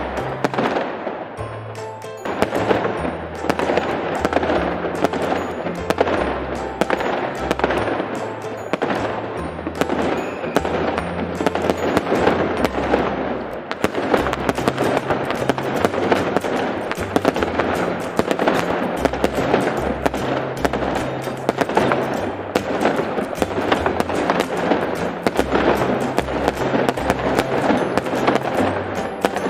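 Fireworks display with many rapid bangs and crackles going off without pause, over music with a steady bass line.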